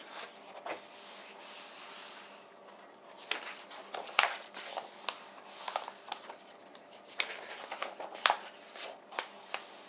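Paper pages of a softcover workbook being handled and turned: a soft rubbing slide, then rustles and crisp page flicks, the sharpest about four seconds in and again about eight seconds in.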